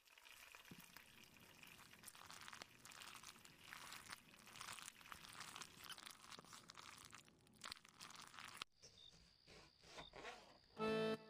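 Quiet crackling sizzle and scraping of a spoon stirring a thick red mixture in a steel pan, followed after a cut by a few soft clicks of a knife cutting tomatoes on a plate. Music comes in loudly near the end.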